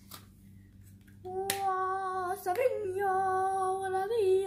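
A girl's voice singing long, steady held notes, starting about a second in, with a small slide in pitch near the end. Before it, a few faint clicks.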